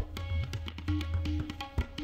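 Background music of quick drum strokes over sustained low ringing tones.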